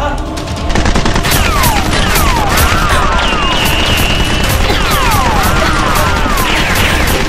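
Action-film sound effect of sustained automatic gunfire, a fast, dense volley that starts about a second in, mixed with repeated falling ricochet whines.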